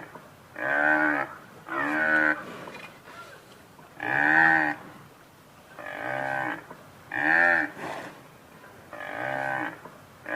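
Water buffalo mooing: short low calls, repeated about six times at uneven gaps of one to two seconds.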